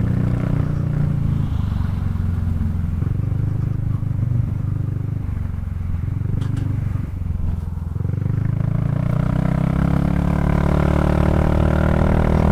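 Kymco Xciting 400i scooter's single-cylinder engine running under way; the engine note dips briefly and then grows stronger from about two-thirds in as the rider gives it more throttle.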